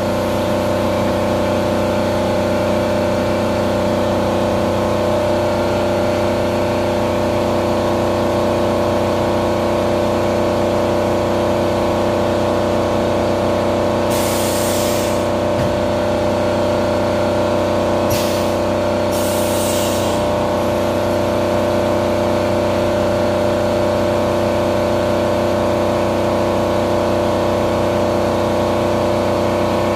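Haas VF2 CNC vertical mill running a machining cycle: a steady mechanical hum with several held tones, and coolant spraying. Three short hisses come near the middle.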